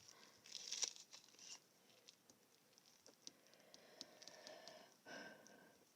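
Near silence with faint, scattered soft taps and rustling, typical of fingertips tapping on a touchscreen's on-screen keyboard, with a short rustle in the first second and another about five seconds in.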